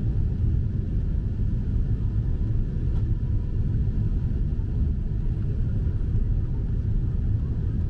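Steady low rumble of engine and airflow noise inside a Boeing 747-8's cabin in flight, with a faint steady hum running through it.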